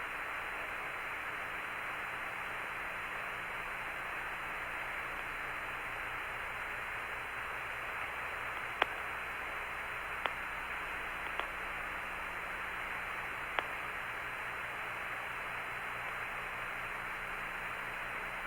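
Steady radio static hiss with a faint low hum on the Apollo 17 air-to-ground voice loop, broken by four brief clicks in the middle stretch.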